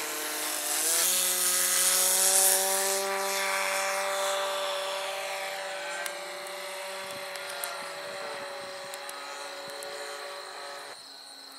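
Engine of a Twist 60 3D radio-control aerobatic airplane in flight, revving up about a second in and then holding a steady high throttle. It fades gradually and drops away sharply shortly before the end.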